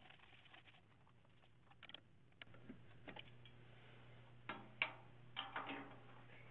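Light clicks and knocks of handling at a stopped wood lathe as an ash bowl is taken off the chuck, with the loudest knocks about three quarters of the way in. A faint low steady hum comes in about halfway.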